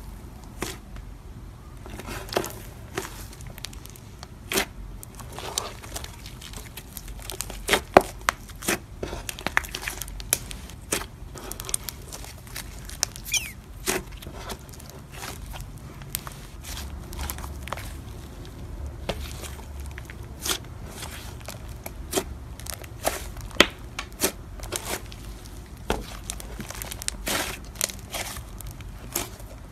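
Thick white slime with small foam beads being pressed, kneaded and stretched by hand, giving irregular crackling and popping clicks.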